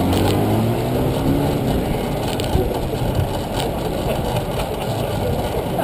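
City traffic heard from a moving bicycle: car engines running close by over a steady road rumble, with one vehicle passing near the start, its pitch falling as it goes by.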